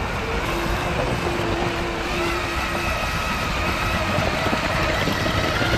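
Steady low rumble of a running vehicle, with faint held tones above it: one lower tone for the first few seconds, then higher tones from about two seconds in.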